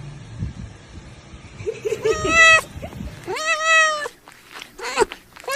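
A domestic cat meowing: three meows from about two seconds in, the third one short, with a fourth starting right at the end. A low rumbling noise comes before the first meow.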